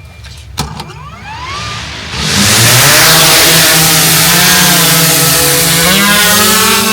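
Camera drone starting up: a click, then its motors whine upward in pitch, and from about two seconds in the propellers spin up into a loud, steady buzz that rises slightly in pitch near the end.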